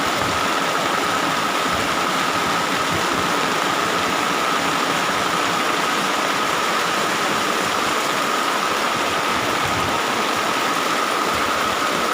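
Heavy rain falling in a steady downpour, a constant dense hiss with a thin steady tone running under it.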